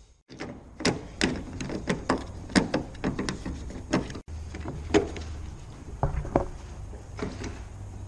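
Irregular sharp clicks and knocks of a Nissan Almera N15's black plastic outside door handle being worked into its opening in the front door's sheet metal.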